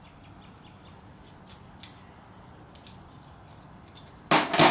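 Faint clicks of small metal wastegate parts and tools being handled during disassembly, then a loud double clack near the end.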